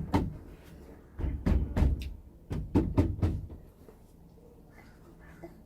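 A series of knocks and bumps, wooden boards and panels being handled and set against each other, in clusters over the first three seconds or so, then quiet handling.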